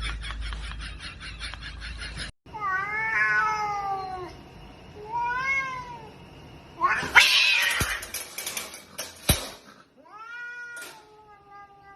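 Cat meowing several times in drawn-out, wavering calls, with a louder harsh cry about halfway through and a long steady meow near the end.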